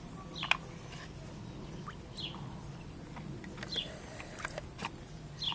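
A bird gives four short falling chirps, spaced about a second and a half apart, over faint splashes and clicks of water in a small paddling pool.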